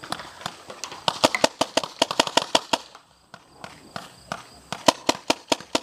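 Paintball markers firing: rapid strings of sharp pops, several a second, thinning out about halfway through and picking up again near the end.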